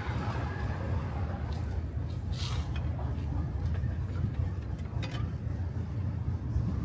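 Old-town street ambience dominated by a steady low rumble, with a brief hiss about two and a half seconds in and a few faint clicks.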